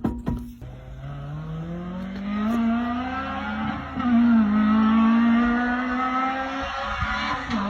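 A car in motion with a droning hum that rises in pitch as it speeds up over a few seconds, then holds fairly steady. This is the hum listened for when checking for a worn wheel bearing.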